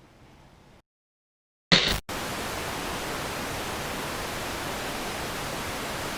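A steady, even hiss of static-like noise that cuts in about two seconds in, right after a moment of dead silence and a short, loud burst.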